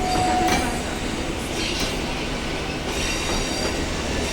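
Passenger train running on the tracks: a steady rumble of wheels on rail, with a faint thin squeal from the wheels at times.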